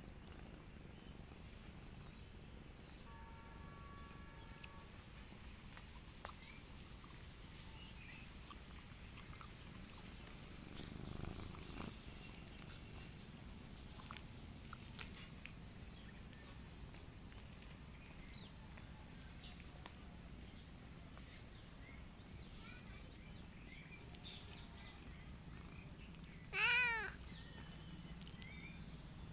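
Domestic cat meowing once, briefly, near the end, over a steady high drone of insects.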